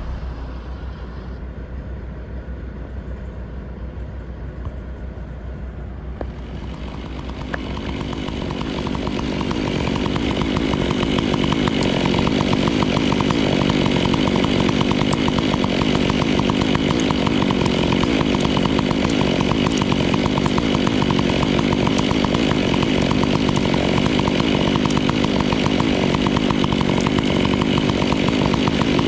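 A low steady machine hum, then from about seven seconds in a chainsaw comes up to full throttle and runs steadily, cutting.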